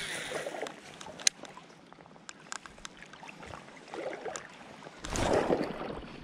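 Creek water sloshing around a wading angler, with a sharp tick about a second in and several light ticks from the baitcasting reel as a lure is cast and retrieved. A louder rush of noise comes in about five seconds in.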